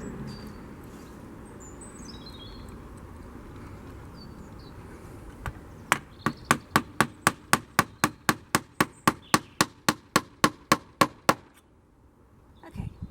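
A small hammer tapping quickly and evenly, about four light strikes a second for some five seconds, starting about six seconds in, with faint bird chirps before it.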